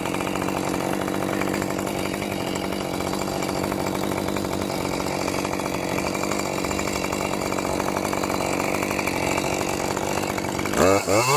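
Chainsaw running steadily at high speed, one even engine note held for most of the time. Near the end the engine dips and is then revved up and down several times.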